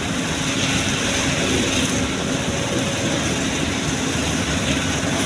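Komatsu excavator's diesel engine running steadily under work, a loud even drone with a constant hum.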